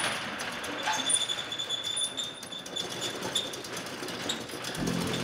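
Metal roll-up door rolling open with a continuous rattling clatter of its slats, with a thin high whine through part of the first half.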